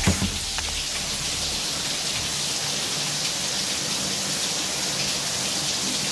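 Shower water spraying: a steady, even hiss of running showers. A single knock right at the start.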